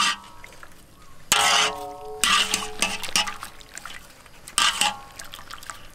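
A wire-mesh skimmer clanking and scraping against a large aluminium wok as baby octopus is stirred in boiling water; four or five metal knocks, each leaving a short ringing tone, with water sloshing between them.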